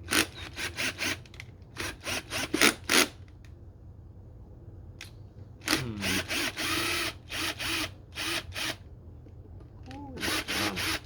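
Hands working plastic and rubber intake parts into place on a small motorcycle: a quick run of clicks and scrapes, then a squeak about six seconds in, a shorter squeak near ten seconds, and more clicks at the end.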